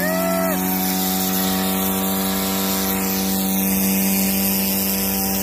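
Vehicle engine held at steady high revs during a burnout, with a steady hiss over it.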